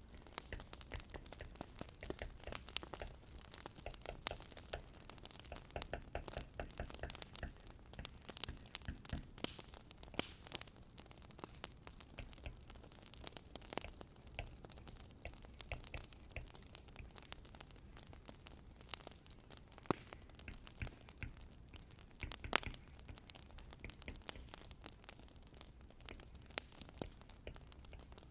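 Firewood burning in a fireplace: dense, irregular crackling over a low steady rumble, with a couple of sharper pops about two-thirds of the way through.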